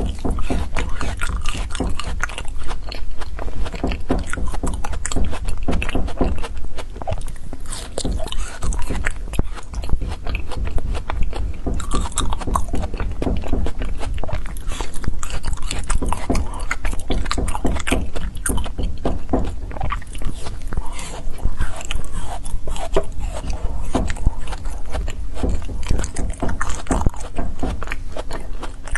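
Close-up biting and chewing of frozen foam ice: dense, rapid crunching and crackling that goes on without a break.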